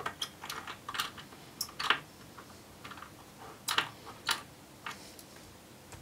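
Light, irregular clicks and taps of a small screwdriver and fingers working at the metal drive bracket of an all-in-one PC while the drive is screwed back in, the sharpest a little under two seconds in and again near four seconds.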